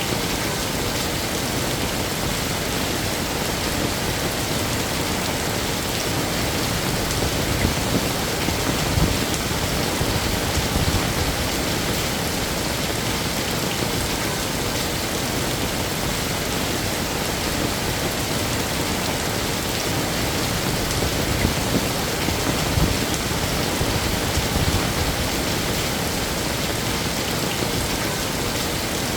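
Heavy rain falling steadily, a dense even hiss. It swells twice with more low rumble, about eight seconds in and again a little past twenty seconds.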